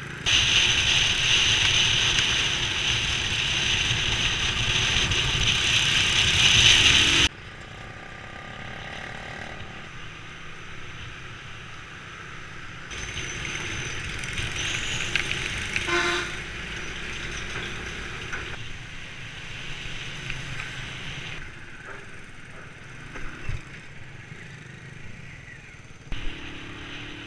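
Motorbike riding: wind rushing over the camera microphone with the bike's engine running under it, in several cut clips, loudest for the first seven seconds. A short horn beep sounds about halfway through.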